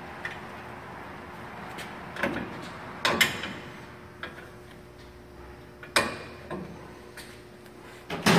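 A long ratchet and wrenches clanking on a pickup's steering knuckle while the ball joint nuts are tightened: scattered metal knocks and clicks, the sharpest about three and six seconds in.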